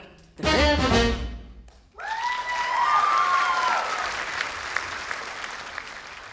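A swing band's closing chord, then, about two seconds in, an audience clapping with whistles, fading toward the end.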